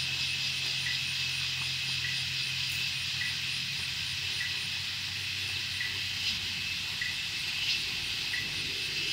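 Outdoor insect chorus: a steady, high-pitched, unbroken shrilling, with a short faint chirp repeating about once a second.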